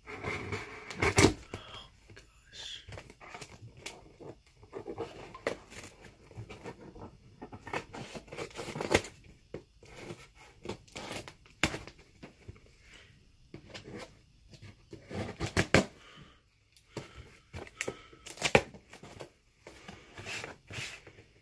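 Scissors cutting through packing tape on a cardboard shipping box, with tape tearing and cardboard scraping and rustling in irregular sharp clicks and snips.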